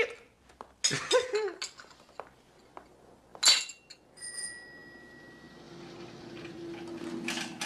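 A bicycle bell ringing, its tone held and slowly fading, starting about four seconds in. A single sharp clink of china comes just before it.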